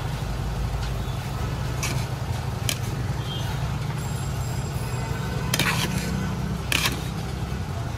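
Steady low rumble of nearby road traffic, with four sharp metallic clinks of serving ladles against steel pots.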